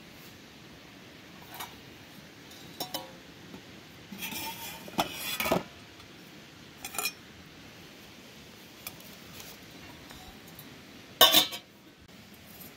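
Stainless steel camp cook pot and lid being handled: a few separate metal clanks, a longer rattling scrape a few seconds in as the nested kit is moved, and one loud clank near the end.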